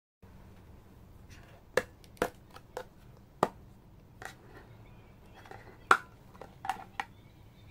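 Clip-lock plastic lid on a stainless steel food container being unlatched by hand: about eight sharp, irregularly spaced clicks and snaps as the latch flaps are pried open, the loudest about two and six seconds in.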